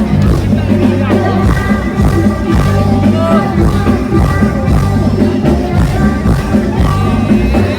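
Live band music from a Thai rot hae parade sound truck: a heavy, steady bass beat under sustained keyboard notes.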